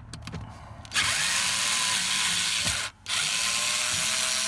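Cordless driver spinning out the Phillips screws of a lower dash panel, in two bursts of about two seconds each with a short stop between them.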